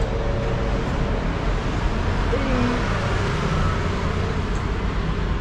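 Steady low rumble of traffic noise. A short rising-and-falling vocal sound from a small child comes about two and a half seconds in.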